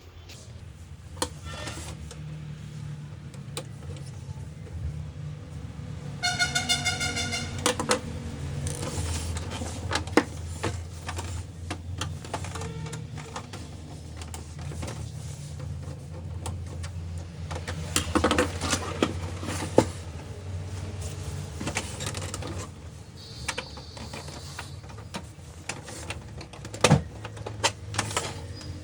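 Canon LBP 2900 laser printer running, with a steady low hum from its drive and irregular clicks and knocks from the gear train. This is the gear noise the printer is faulted for. A short pitched tone sounds about six seconds in.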